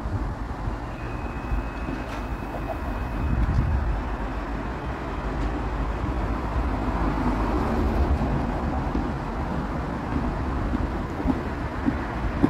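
Cologne Stadtbahn light-rail train running out of the station and away along the track, under heavy wind buffeting the microphone. A thin high tone sounds for about two seconds near the start.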